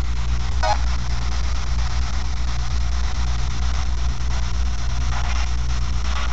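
Steady low hum, with a few faint brief sounds over it.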